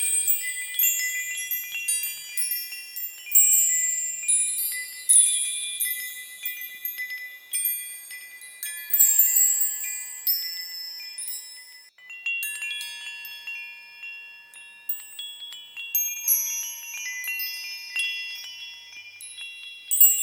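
High-pitched chimes or small bells, struck at random and overlapping, each note starting sharply and ringing out, like wind chimes.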